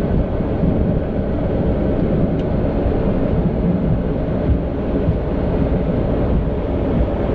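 Flight-deck noise of an ATR 72-600 turboprop on its landing roll, slowing after touchdown: a steady low rumble of the engines, propellers and wheels rolling on the runway.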